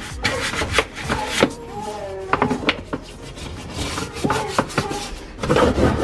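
Stiff plastic scrub brush scrubbing the plastic filter housing and floor of a dishwasher tub, in a series of irregular scraping strokes, loudest near the end, working loose built-up grime.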